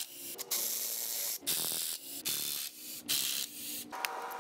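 Cordless electric ratchet whirring in about five short runs, spinning out the bolts of a Nissan S15's stock clutch pressure plate.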